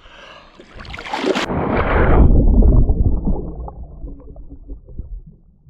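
A person plunging under the lake with a camera: a splash about a second in, then muffled underwater rumbling and bubbling that slowly fades.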